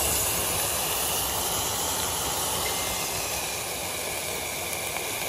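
Firework fountain burning, spraying sparks: a steady loud hiss that slowly gets a little quieter.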